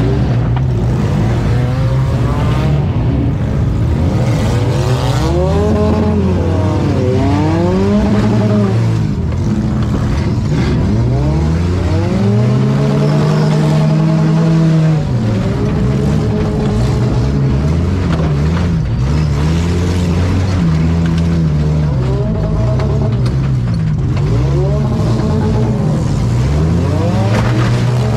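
Compact demolition derby car engine revving hard, its pitch climbing and dropping back again and again, each rise and fall lasting a second or two, over a rough low rumble.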